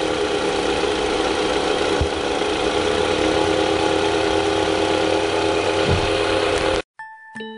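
Mitsubishi 4B12 2.4 L inline-four engine idling after a rev dies away, with steady tones running over the idle. The noise is put down to a worn one-way clutch pulley on the alternator. Near the end it cuts off suddenly and tinkling chime music begins.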